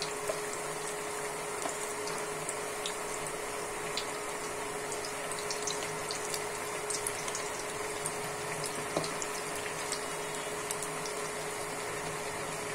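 Cabbage pakoras deep-frying in hot oil on medium heat: a steady sizzle and bubbling with scattered small pops and clicks. A faint steady hum runs underneath.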